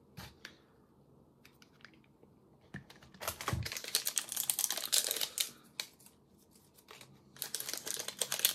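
Plastic wrapping on a small alcohol ink bottle crinkling as it is handled, in two long stretches of dense crackling after a few light clicks, with a soft thump in the middle of the first stretch.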